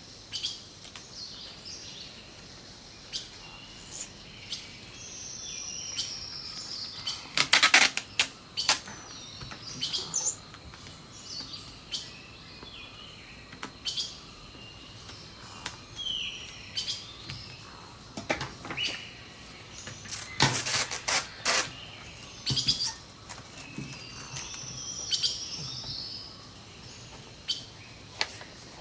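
Small birds chirping and calling with short varied phrases, over a faint steady high tone. A few loud short bursts of noise cut in, the strongest about a third of the way in and again around two thirds of the way through.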